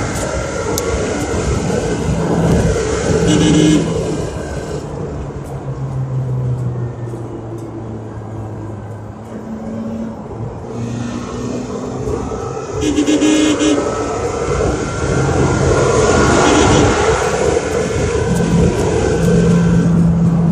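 A car driving on a paved road, heard from inside the cabin: steady engine and road noise, with a few short horn toots along the way.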